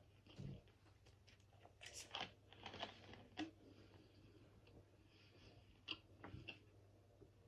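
Faint, scattered eating and handling noises: soft chewing and clicks of a plastic soda bottle being opened and handled, strongest about two to three and a half seconds in and again near six seconds.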